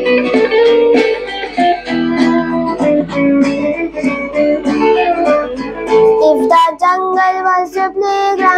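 Instrumental intro of a children's song, with a boy's singing voice coming in near the end.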